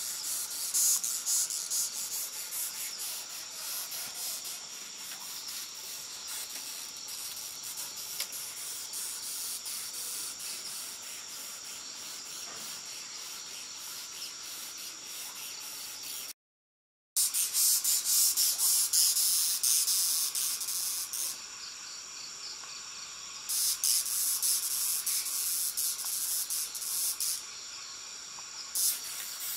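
Night-time insect chorus of crickets: a steady high-pitched trilling with fine rapid pulsing. It cuts out completely for under a second about 16 seconds in, then comes back louder.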